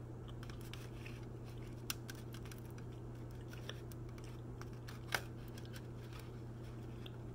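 Fingers handling chocolates in the plastic tray of a heart-shaped candy box: scattered light clicks, the sharpest about two and five seconds in, over a steady low hum.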